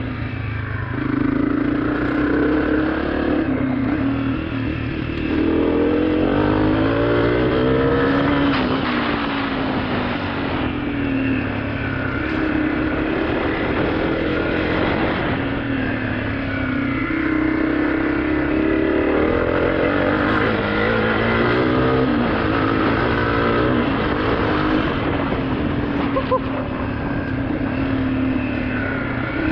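2023 Honda CRF250F's single-cylinder four-stroke engine running under a rider on the trail, its note rising and falling again and again as the throttle is opened and backed off.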